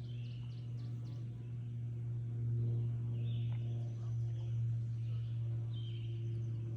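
Wild songbirds chirping in short scattered calls over a steady low hum.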